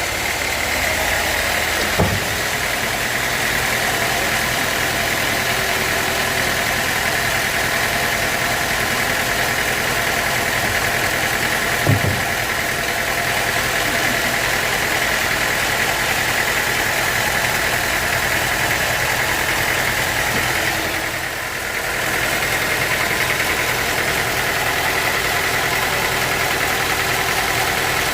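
Sawmill machinery running steadily with a constant engine-and-blade drone, broken by two short knocks, about two seconds in and about twelve seconds in, and a brief dip about three-quarters of the way through.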